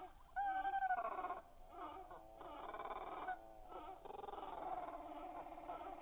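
Arctic tern calls played slowed down, so they come out low and drawn-out. Several calls overlap, each arching up and down in pitch.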